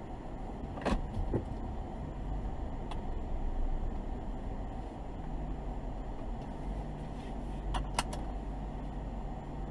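Car driving, heard from inside the cabin: steady engine and road noise, with a few short clicks, two close together near the end.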